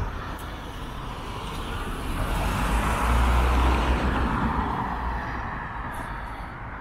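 A car passing by on a city street, its noise swelling to a peak about three seconds in and then fading, over a steady low traffic rumble.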